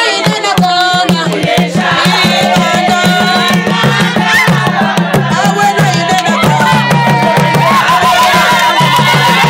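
Tall wooden hand drums played in a fast, steady rhythm, coming in just after the start, under a woman's singing.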